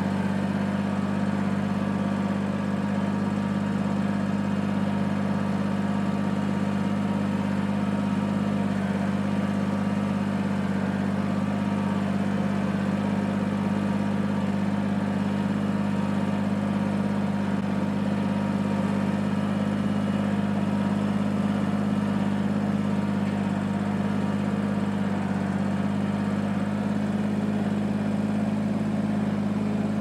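Compact tractor's diesel engine idling steadily while it warms up, one even low hum that does not rise or fall.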